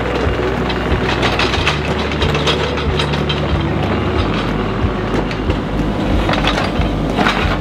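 A Kubota mini excavator's diesel engine runs steadily as the machine travels on its tracks, with continual clanking and rattling from the tracks and undercarriage.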